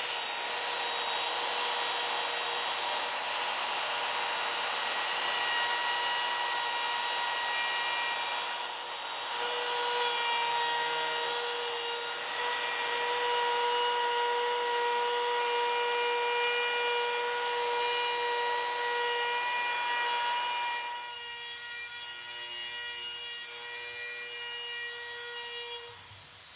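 Palm router with a 3/16-inch ball-bearing roundover bit running at full speed with a steady high whine, rounding over the top edge of a black walnut board. Near the end the sound becomes quieter and changes.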